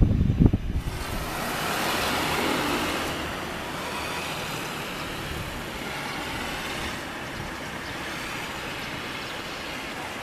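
Jet airliner engines running at high power on the runway, heard as a steady rushing noise that starts suddenly about a second in and eases slightly later on. Wind thumps on the microphone come just before it.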